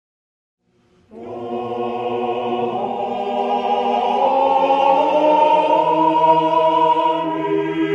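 Choir music: voices singing long held chords, coming in after about a second of silence and swelling slightly.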